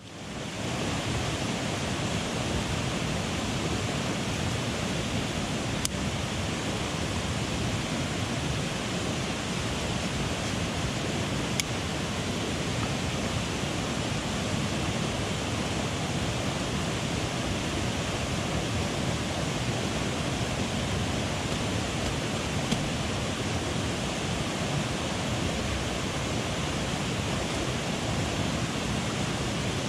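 Headwater mountain stream rushing, a steady wash of water noise that fades in at the very start, with a few faint ticks over it.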